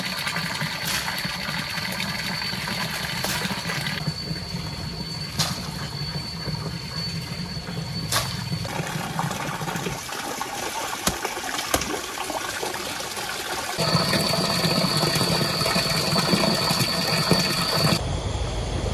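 Pond water sloshing and splashing as something is rinsed by hand at the water's edge.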